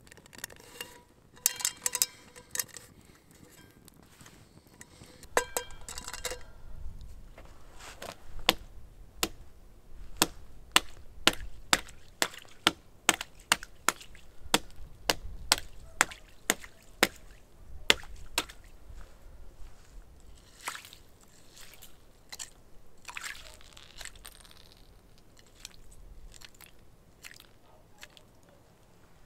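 A metal pot clinking and ringing a few times in the first seconds. Then a knife blade stabbing into thin shore ice, a long run of sharp knocks about two a second, followed by softer crunching and sloshing of broken ice in the water.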